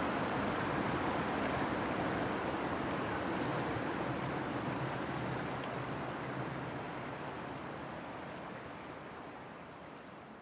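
Inland cargo ship passing on the river: a steady rush of water from its bow wave under a low diesel hum, fading out over the last few seconds.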